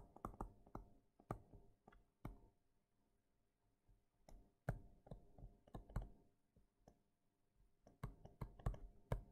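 Faint, irregular clicks and taps of a stylus on a tablet screen during handwriting. They come in small clusters with pauses of a second or two between.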